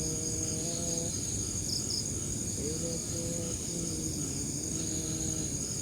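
Steady high-pitched chorus of crickets and other night insects. A faint wavering low tone comes and goes beneath it, about twice.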